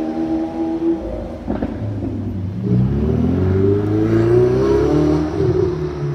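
A Lamborghini Aventador's V12 running as it drives off, cut short about a second in; then a Ferrari spider's V8 accelerating away from a standstill, its engine note climbing, dipping briefly near the end and climbing again.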